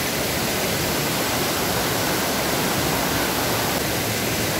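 Steady rush of fast-flowing water in a canyon river, an even hiss with no breaks.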